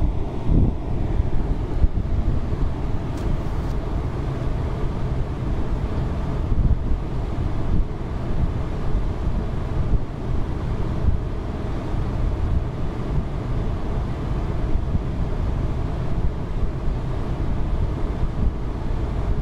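Wind buffeting the microphone: a steady, low rumbling noise that rises and falls slightly in small gusts.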